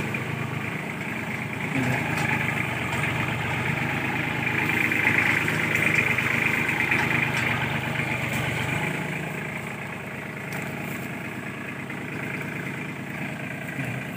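Kubota farm tractor's diesel engine running as the tractor moves close by, getting louder toward the middle and easing off somewhat after about nine seconds.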